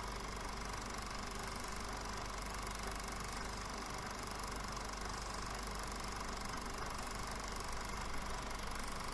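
Film projector running steadily, its mechanism whirring with a low hum underneath, unchanging throughout.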